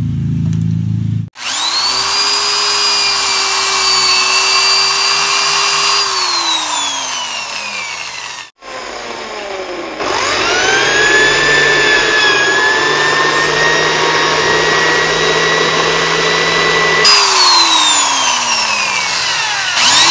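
A Makita electric drill boring holes through thin plywood. Several times over, the motor spins up to a steady whine, runs, then winds down with its pitch sliding away. It starts again near the end.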